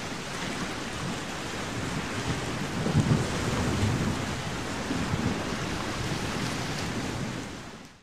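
Steady rushing ambient noise with low rumbles about three seconds in, fading out near the end.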